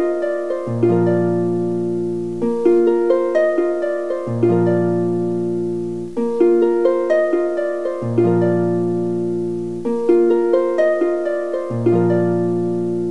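Background music of plucked, harp-like notes: a short rising phrase that repeats about every four seconds over deeper held notes.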